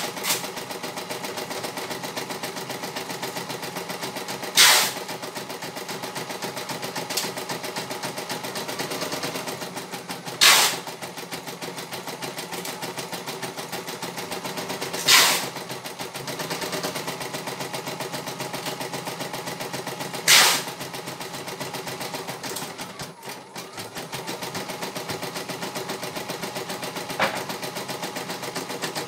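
CNY E900 computerized embroidery machine stitching at a fast, even rate. Four brief, much louder bursts come about every five seconds, and the stitching drops away for about a second near the end before carrying on.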